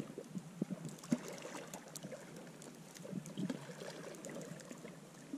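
Footsteps crunching through deep fresh snow: an uneven run of soft crunches and rustles.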